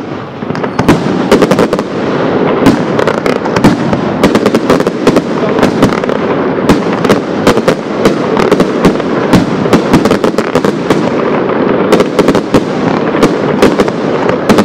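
Professional fireworks display: aerial firework shells bursting in a dense, continuous barrage, many sharp bangs over a steady din of explosions. It builds within the first two seconds and then stays loud.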